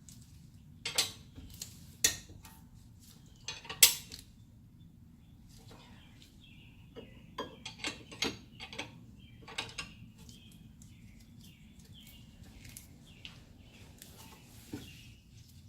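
Metal hand tools and brake parts clinking and clicking as they are handled during brake reassembly: scattered sharp clicks and knocks, the loudest three in the first four seconds, then a run of lighter clinks.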